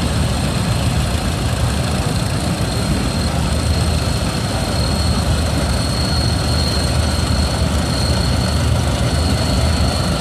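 Antique farm tractor engines running steadily at slow parade pace, with a low rumble and a thin, steady high-pitched tone above it.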